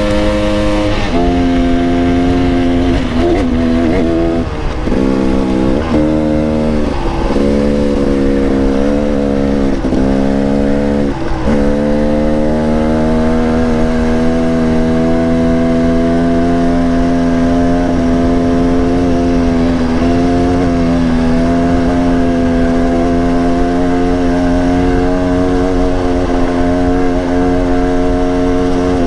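2016 KTM 300XC-W two-stroke single-cylinder dirt bike engine, with a Pro Circuit Platinum II pipe, running hard on a trail ride. Its revs fall and climb repeatedly over the first ten seconds or so, then hold a steady pitch for the rest.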